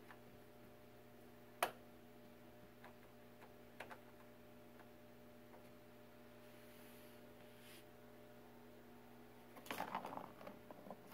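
Near-quiet room with a steady low mains hum, a single sharp click about a second and a half in and a few faint ticks. Near the end comes a brief patch of scuffling and rustling as kittens paw and scramble around a paper bag and cardboard box on a tile floor.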